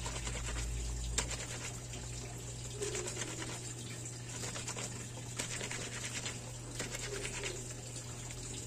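Hands scrubbing a soapy wet cloth against itself with bar-soap lather: wet rubbing strokes that come in short bouts every second or two.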